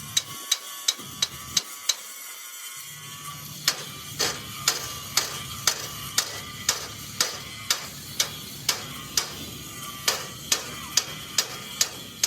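Steady hand-hammer blows on metal with a short ring after each, about three a second at first, then after a pause of about two seconds about two a second. A low steady hum comes in about three seconds in.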